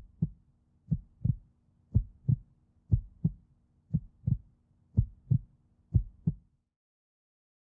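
Heartbeat sound effect: paired low 'lub-dub' thumps about once a second over a faint steady hum. The beats stop abruptly about six and a half seconds in.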